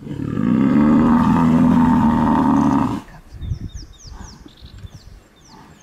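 African buffalo bellowing in distress while pinned down and being killed by lions: one long, loud low call of about three seconds that cuts off suddenly.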